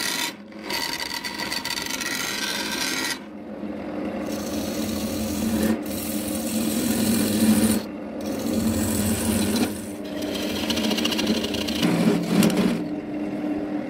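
Wood lathe running with a steady hum while a hand-held tool rasps and scrapes against a spinning vase of wood and epoxy resin. The sound breaks off abruptly and restarts several times.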